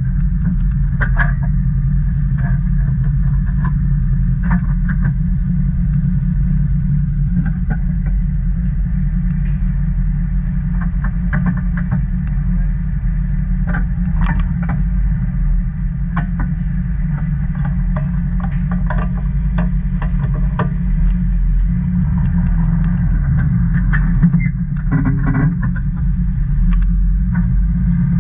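Off-road vehicle engine idling steadily, with scattered light clicks and knocks over it.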